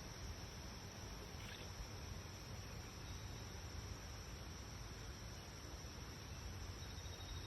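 Faint, steady background noise with a low rumble and no gunshots.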